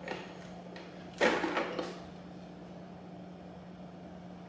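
Hard plastic parts of a Cuisinart slow juicer knocking and clattering as they are handled and fitted onto the motor base: a light knock at the start and a louder clatter about a second in, over a steady low hum.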